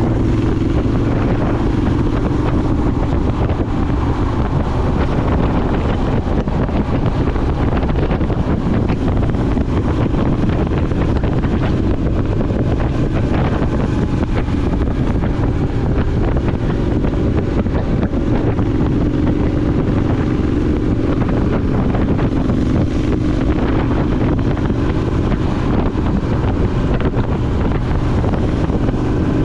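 Triumph Scrambler 900's parallel-twin engine running steadily through an aftermarket ZARD exhaust at cruising speed, with wind buffeting the microphone.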